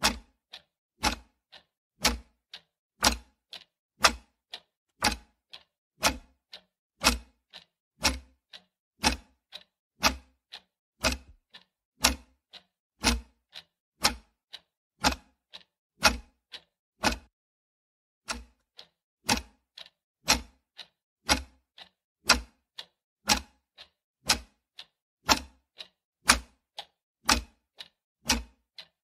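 Clock-ticking sound effect keeping time for a countdown timer: a steady tick-tock of about two clicks a second, alternating louder and softer, with a break of about a second some seventeen seconds in.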